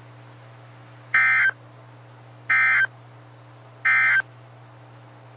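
Emergency Alert System end-of-message code: three short bursts of SAME digital data warbling, each about a third of a second long, about 1.4 s apart. A steady low hum runs underneath.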